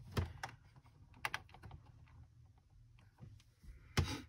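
Several irregular plastic clicks and taps as a snap-together electronics kit is handled, with a sharper click about four seconds in; the circuit itself makes no sound.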